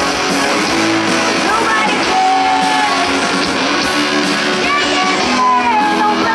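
Live rock band playing, with strummed guitars and a melody line over them.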